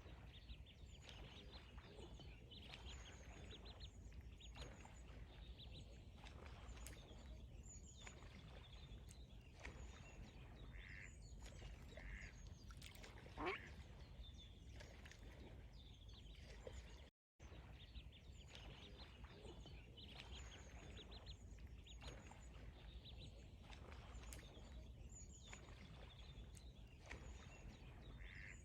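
Ducks calling, faint, with many short repeated calls, and one louder rising call a little before halfway. The sound cuts out completely for a moment just past halfway, then the calls go on.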